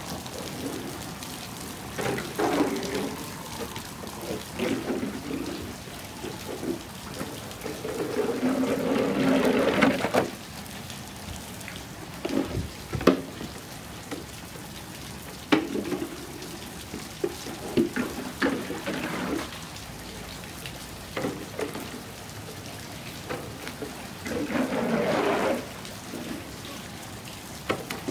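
Steady rain falling on a wet concrete driveway, with repeated swishing splashes, each a second or two long, as a broom pushes standing water across the surface. There are a couple of sharp knocks in the middle.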